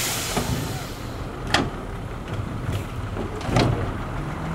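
Dump truck's diesel engine running steadily while a load of dirt slides out of the raised tipper bed, with sharp knocks as clumps and rocks drop, about one and a half seconds in and again near the end.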